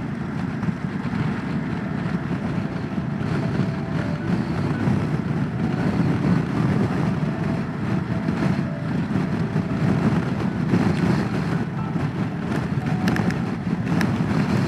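Motorcycle riding at road speed, its engine and tyres under a heavy rush of wind on the microphone from a strong crosswind.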